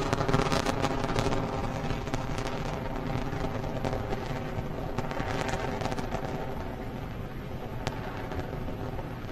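Falcon 9 rocket's nine Merlin engines during ascent: a crackling rumble with rapid pops, slowly fading as the rocket climbs away.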